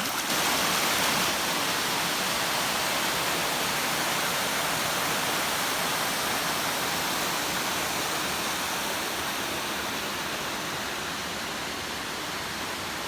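Steady rush of fast-flowing water, a stream or small waterfall, slowly growing fainter and dropping away suddenly at the end.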